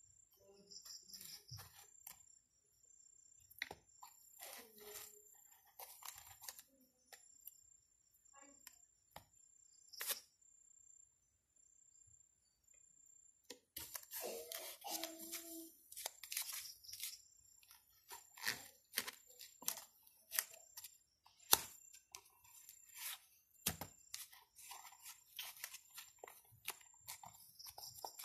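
Faint handling noises: foam padding and paper rustling and tearing as hands fit the foam lining into a cardboard box, with scattered small taps and clicks.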